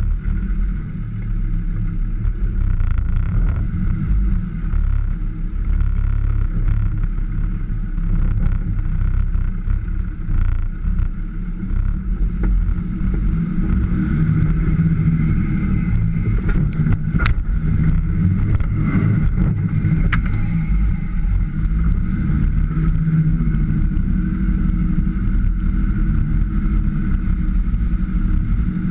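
Land Rover Defender's engine running continuously while driving off-road, a steady low rumble, with two short sharp knocks in the second half.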